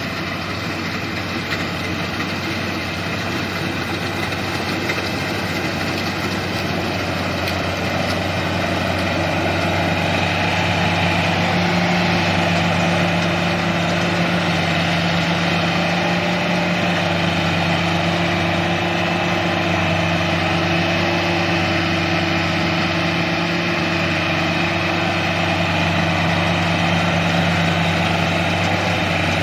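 Rice combine harvester's diesel engine running steadily with a low hum, growing louder over the first ten seconds and then holding level.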